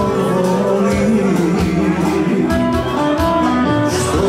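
Music with singing, held instrument notes over a bass line and a steady beat.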